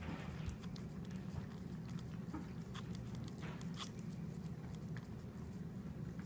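A cat licking a candy cane, its tongue making small irregular wet clicks and smacks over a steady low hum.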